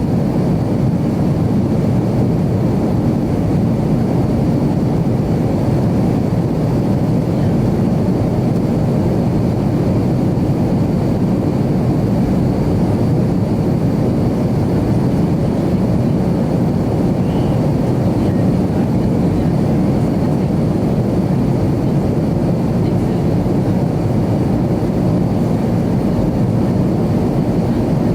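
Steady jet cabin noise inside an Avro RJ100: its four turbofan engines and the airflow making an even, unchanging rumble heard from a passenger seat.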